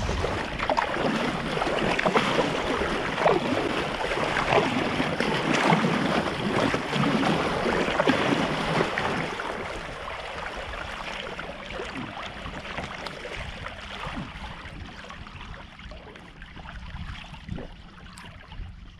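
Water splashing and sloshing around a kayak moving through the water, with wind on the microphone. Irregular splashes, louder for about the first half, then quieter.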